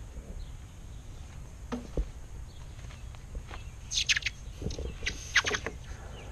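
A hot aluminum casting held in tongs is dunked into a tub of water to quench it. It gives short bursts of sputtering crackle about four seconds in and again a second and a half later, after a few light knocks.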